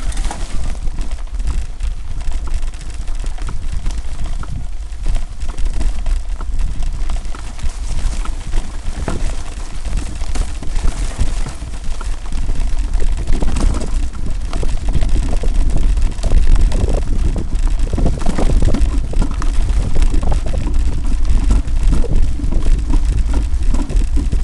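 Mountain bike rattling and knocking over a rough forest trail, with a steady low rumble of wind and jolting on a microphone that rides along at speed.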